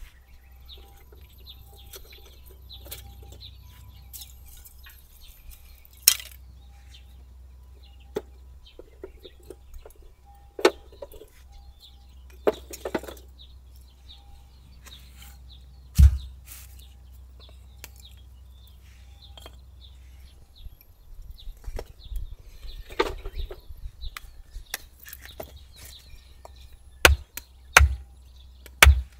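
Firewood being split into kindling with a hatchet on a log chopping block: scattered sharp chops and wooden knocks, with three heavy strikes in quick succession near the end.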